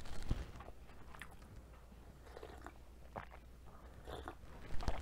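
Close-miked eating sounds: a person chewing and sipping coffee from a mug, with scattered small mouth clicks. A louder sip comes near the end.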